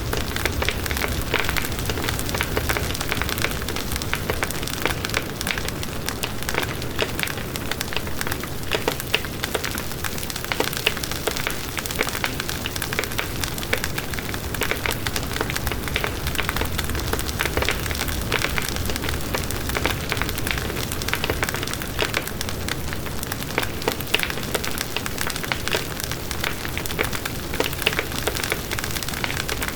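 Fire burning with continuous dense crackling and popping over a steady rushing hiss.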